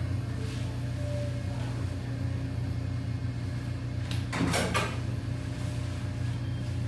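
Ceiling-mounted X-ray tube head being pushed along its mount, a brief scraping rattle with a few clicks about four seconds in, over a steady low hum of room equipment.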